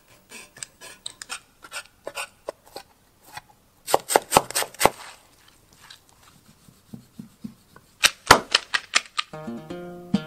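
Hand food-preparation sounds: moist dough squeezed and kneaded in a glass bowl, then minced beef, onion and fat filling worked by hand, with two quick runs of sharp knocks. A plucked-string tune begins near the end.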